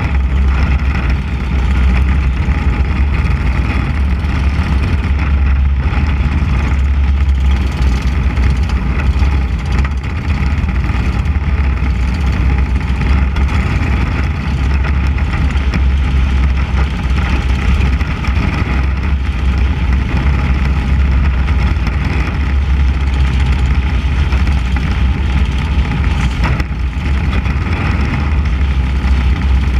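Mini Cup race car's 600cc motorcycle engine running hard at racing speed, with a heavy, steady rumble from the rushing air on the hood-mounted camera.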